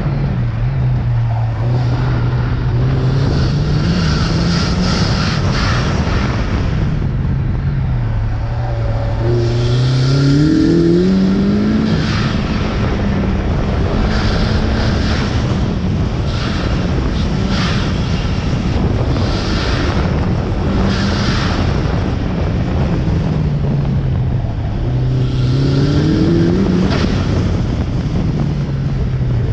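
Turbocharged Mazda Miata four-cylinder engine driven hard through an autocross course, its pitch climbing and dropping again and again as the driver accelerates and lifts. Short hissing bursts come with the lifts: the turbo's 'choo choo' flutter.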